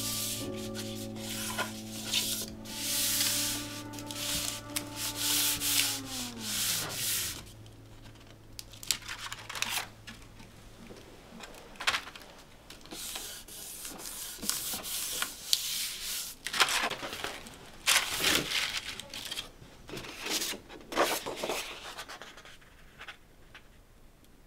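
Hands rubbing and smoothing paper onto the fanned-out bamboo ribs of an uchiwa fan, in repeated bursts of rustling and scraping. Music with held notes plays at first, then bends downward in pitch and fades out about seven seconds in.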